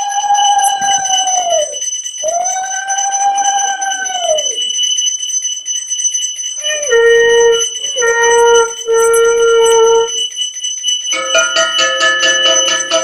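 Conch shell blown in two long blasts, each rising in pitch, held and falling away. Three shorter, lower blasts follow, over a steady high ringing like a puja hand bell. About two seconds before the end, music with a quick regular beat comes in.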